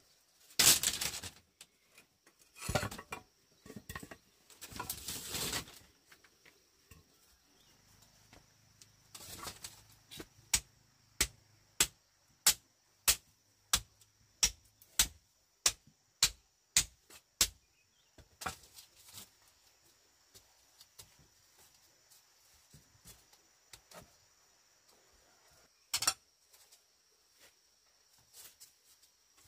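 Work noises: a few short rough scuffs in the first seconds, then about a dozen sharp, evenly paced knocks, about three every two seconds, and one more loud knock near the end.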